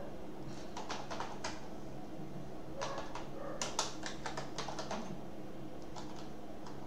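Typing on a computer keyboard: two short bursts of key clicks, one about half a second in and another around three to four seconds in, then a few single keystrokes, over a faint steady low hum.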